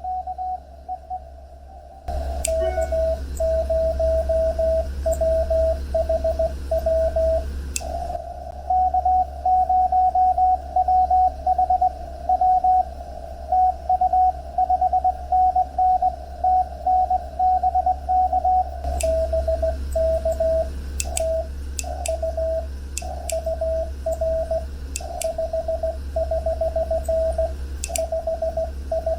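Morse code (CW) from a Lab599 TX-500 ham transceiver on 20 meters: a single tone keyed on and off in dits and dahs over band hiss. The Morse starts about two seconds in and switches to a slightly higher-pitched signal in the middle, as stations take turns. Occasional static clicks are heard.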